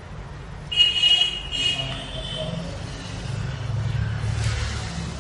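Steady low rumble of road traffic, with two short high-pitched honks about a second in.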